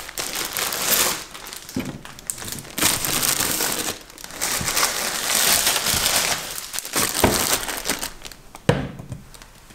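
A wooden roll-top bread bin's slatted lid sliding open, then a plastic bread bag crinkling as it is handled, with a few light knocks of wood.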